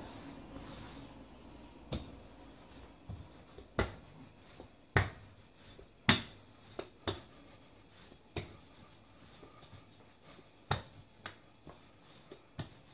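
Wooden rolling pin knocking and clacking against the worktop while dough is rolled out, in about ten sharp, irregular knocks, the loudest about five and six seconds in.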